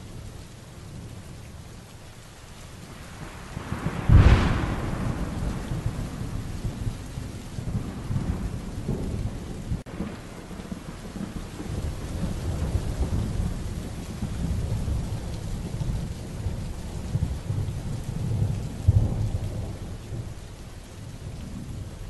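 Steady rain in a thunderstorm, with a sharp thunderclap about four seconds in followed by low rolling rumble that swells again near the end.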